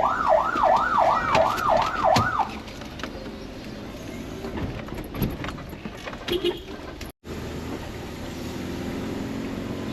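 Emergency vehicle siren giving a fast rising-and-falling wail, about six cycles over the first two and a half seconds, then stopping. Quieter vehicle noise follows, and after a brief cut a steady low hum.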